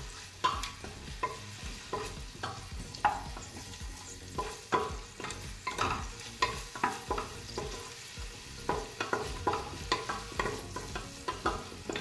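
Sliced onions sizzling in hot oil in a pressure cooker while a spatula stirs them, knocking and scraping against the pot irregularly. They are being sautéed until soft.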